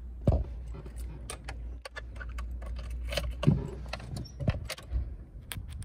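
Car keys jangling on their keyring, among a string of short sharp clicks and knocks.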